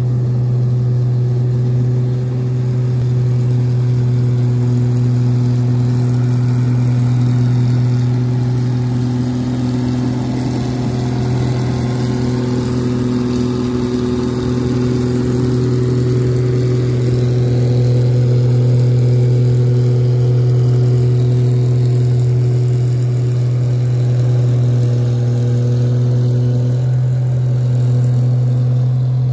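New Holland 8060 combine harvester's diesel engine running steadily, its exhaust giving a loud, deep, even drone with a constant low hum.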